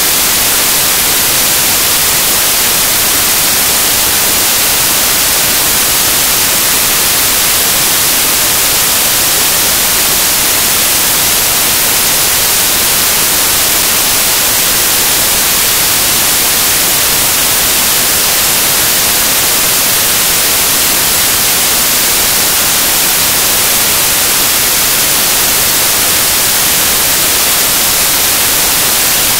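Loud, steady static hiss with no change, harshest in the high treble.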